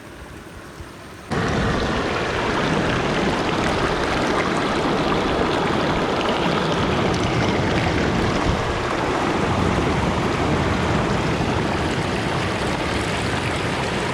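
Water rushing over a small rocky waterfall cascade: a loud, steady rush that comes in suddenly about a second in.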